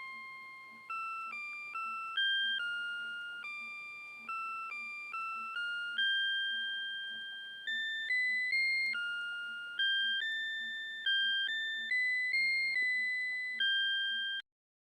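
Citizen CITE QHM3313-2 melody alarm clock playing an electronic chime melody, note by note, each note sounding sharply and fading away. The tune stops abruptly near the end.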